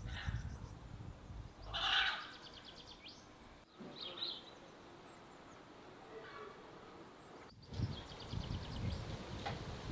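Outdoor garden ambience with birds calling: a louder call about two seconds in, a short high call a couple of seconds later, and rapid chirping trills near the end, over a low rumble.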